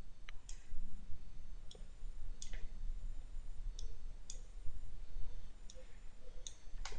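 Computer mouse clicking: about ten sharp, separate clicks at uneven intervals while a dialog is scrolled, over a faint steady low hum.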